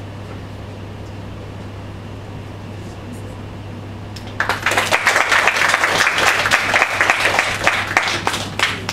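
Audience applause: a small group clapping, starting suddenly about halfway through as the cast bows, then steady. Before it, only a low steady hum.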